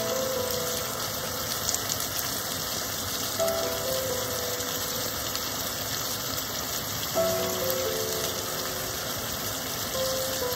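Chicken adobo in coconut-milk sauce simmering and sizzling steadily in a frying pan, a constant crackling hiss. Soft background music plays over it, a short phrase of notes about every three and a half seconds.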